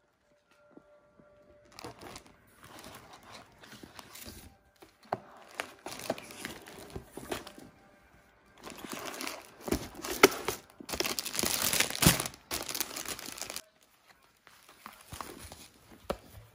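Clear plastic packaging crinkling in irregular bursts as it is handled, with a few sharper crackles. The crinkling is loudest about two thirds of the way through.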